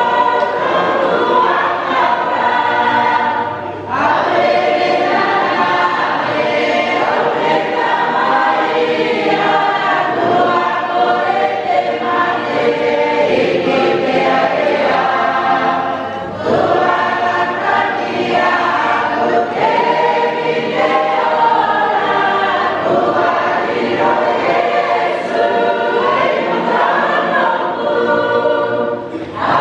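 Church congregation of many voices singing a hymn together, with brief pauses between phrases about four seconds in, at about sixteen seconds and near the end.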